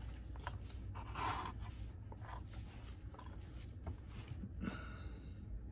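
Soft scratching strokes and light ticks of a paintbrush working on small plastic model parts, one longer stroke about a second in, over a steady low hum.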